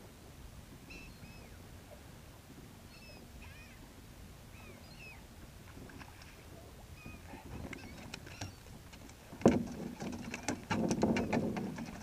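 Gulls calling overhead, faint and on and off. From about seven and a half seconds in comes a run of clicks, then a sharp knock and a louder spell of thumping and rattling near the end as a hooked speckled trout is brought aboard the skiff.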